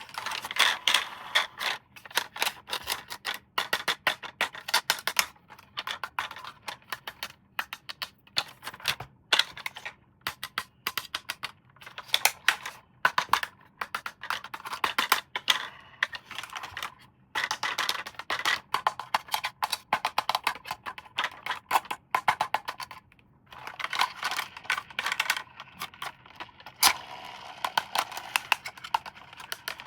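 Rapid, irregular clicking and crackling of plastic being handled, coming in clusters with short pauses between them.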